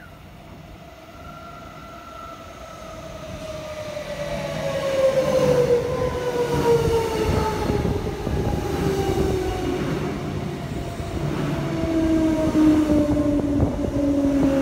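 Queensland Rail electric multiple unit pulling into the platform: its electric motors whine, several tones falling steadily in pitch as it slows. Wheel-on-rail rumble grows louder as the train draws alongside, about five seconds in.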